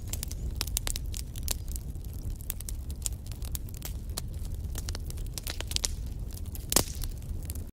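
Wood fire crackling in a fireplace: a steady low rumble of flames with frequent small pops and snaps from the burning logs, one louder pop near the end.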